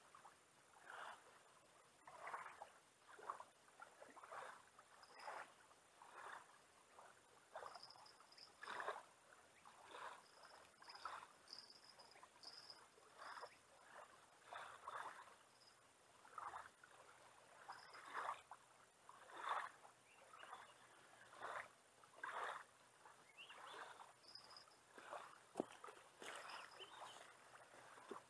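Faint small waves lapping at the bank and against a beached kayak's hull, a soft splash about once a second.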